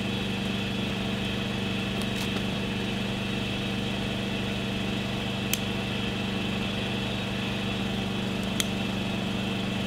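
A steady engine hum at an even level, with a few sharp snaps about two, five and a half and eight and a half seconds in from a freshly lit kindling fire catching.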